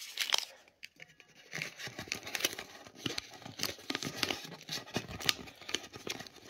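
A banknote rustling and crinkling as it is handled and pushed into a metal savings tin, with small clicks and taps from the tin.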